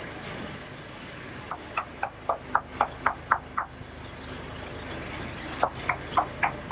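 A rapid series of knocks, about four a second, in two runs: nine knocks starting about a second and a half in, then five more near the end. A steady low hum runs underneath.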